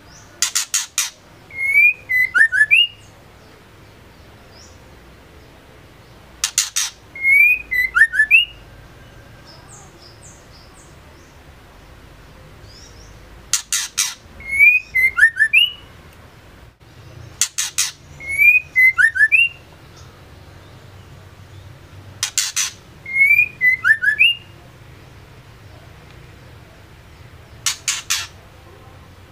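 Female white-rumped shama calling in six short bouts a few seconds apart: each is a quick rattle of three or four sharp clicks followed by a few short down-slurred whistled notes, the last bout clicks only. Such female calls are used to provoke male shamas into singing.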